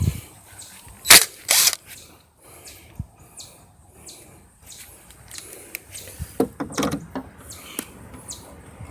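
Scattered sharp metallic clicks and clacks of hood bolts and hand tools being handled, with two loud clacks about a second in and a quicker run of small clicks later.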